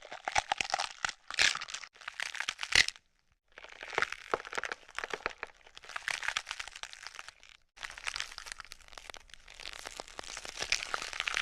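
Close-up crackling and crinkling: dense runs of fine clicks and crackle in bursts. Three short bursts come in the first three seconds, then after a short pause two long runs follow, split by a brief break.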